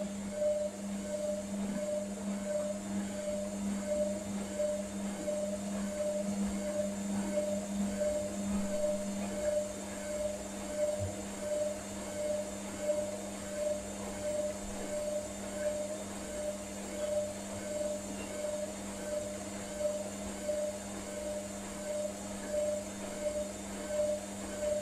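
Hotpoint Ariston Aqualtis washing machine running a rinse on its wool programme: a steady motor hum with a higher whir that pulses about twice a second.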